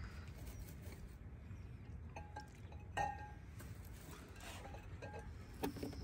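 Chicken eggs clinking against a glass bowl as they are set into it: a few light knocks with a short glassy ring, the sharpest about three seconds in.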